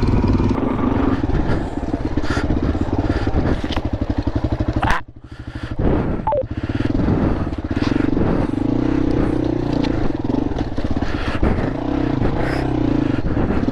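Dirt bike engine running under way, its note rising and falling with the throttle; it drops off sharply for a moment about five seconds in, then picks up again.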